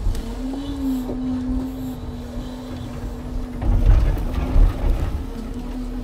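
Heavy truck machinery running: a steady whine that swells and dips in pitch over a low rumble, with a cluster of deep thuds about four seconds in.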